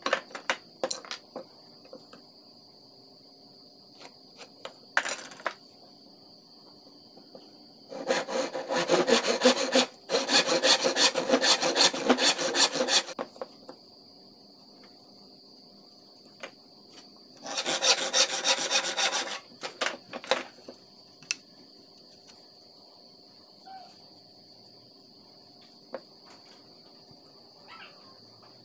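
Rapid scraping strokes of a hand tool working a wooden board, in one stretch of about five seconds and a shorter one of about two seconds, with light knocks of wood pieces being handled and set down. A steady high insect trill runs underneath.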